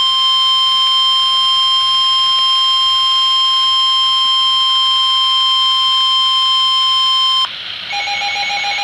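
NOAA Weather Radio 1050 Hz warning alarm tone: one loud, steady electronic tone that cuts off abruptly about seven and a half seconds in, signalling that a warning message follows. A fainter, lower steady tone comes after it.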